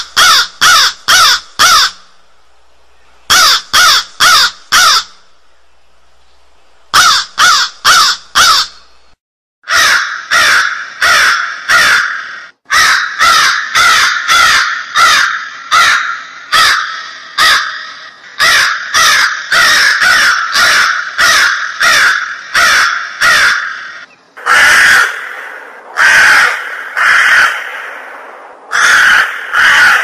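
Crows cawing: quick runs of four or five harsh caws with short pauses between them, then from about ten seconds in a near-unbroken stream of caws, and longer, rougher caws in the last few seconds.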